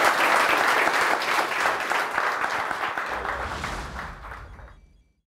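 Audience applauding, fading out near the end as a low whoosh comes in.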